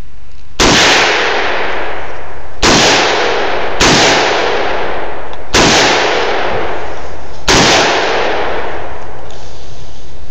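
Five AR-15 rifle shots fired at an uneven pace, one to two seconds apart, each with a long fading echo.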